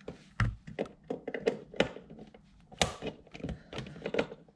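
Irregular clicks and knocks of plastic parts and wiring being handled and fitted in a car door, with a dull thump about half a second in.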